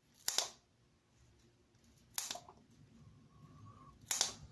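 Small scissors of a Splitman multi-tool snipping through paracord: three sharp snips about two seconds apart.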